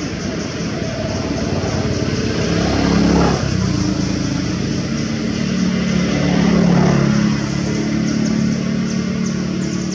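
Motor vehicle engines running nearby, with a pitch sweep about three seconds in and loudest around six to seven seconds in, over a steady high-pitched buzz.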